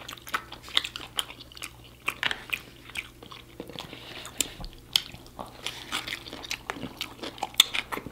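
A person chewing and biting food close to the microphone: irregular mouth clicks and crunches, several a second.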